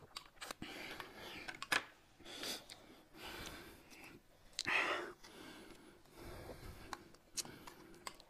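Close-up eating sounds: spoons clicking against china bowls and a glass cup, soup being sipped and slurped, and breathing between mouthfuls, with one louder slurp-like burst a little before the middle.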